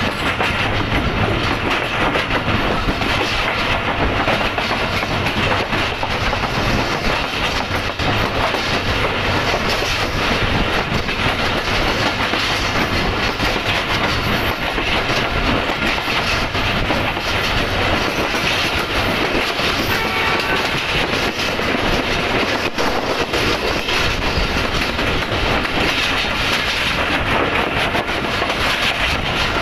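Moving Pakistan Railways Tezgam Express passenger train heard from an open coach window: a steady rumble of the running coaches with continual clickety-clack of wheels over the rails.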